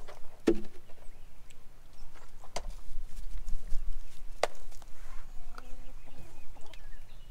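Great Pyrenees dogs eating from food bowls: scattered sharp clicks and crunches, three of them louder and about two seconds apart.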